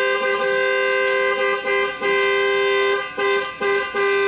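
Car alarm blaring through the vehicle's two-tone horn: long steady blasts of two notes sounding together, each cut by a brief break. It was set off by reconnecting the battery.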